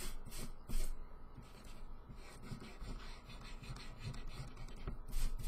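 Pencil scratching on paper as lines are drawn over. There is a cluster of short strokes in the first second and more about five seconds in.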